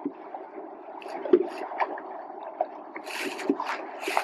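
Rowing shell under way: blades splashing in and out of the water and the oar gear knocking, over a steady wash of water. The knocks and splashes come thicker near the end.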